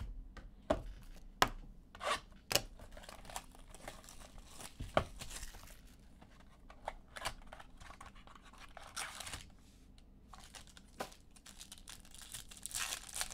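Foil wrappers of baseball card packs being torn open and crinkled, with sharp snaps and clicks as the packs and cards are handled.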